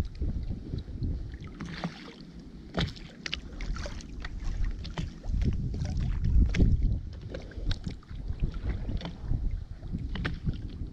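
Wind rumbling on the microphone, with scattered sharp clicks and knocks from fishing reels and tackle being worked in a small inflatable boat.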